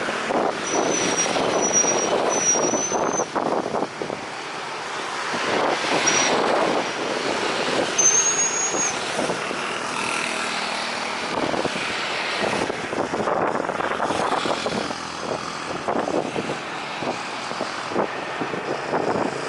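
Road traffic passing on a busy main road, a continuous rush of vehicle noise with repeated surges, and a few short high squeaks near the start and about eight seconds in.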